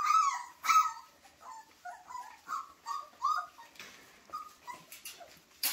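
24-day-old flat-coated retriever puppies whimpering and squealing in a string of short, high calls, loudest at the start and growing fainter. A sharp click sounds near the end.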